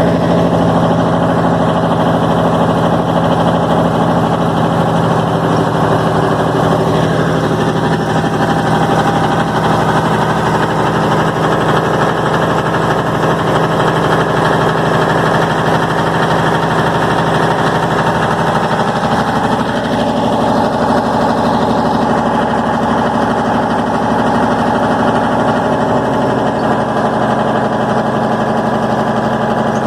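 A vintage FNM (Alfa Romeo) truck's diesel engine idling steadily. About two-thirds of the way through, its note changes slightly to a different steady pitch.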